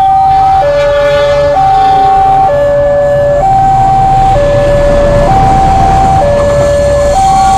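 Railway level-crossing warning alarm sounding a two-tone high-low signal, switching pitch about once a second. A diesel-hauled passenger train approaches and passes across the crossing, its rumble growing louder through the second half.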